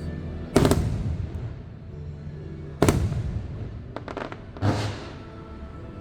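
Fireworks shells bursting in a fireworks show: three loud booms about two seconds apart, with a quick run of sharp pops about four seconds in, over the show's music.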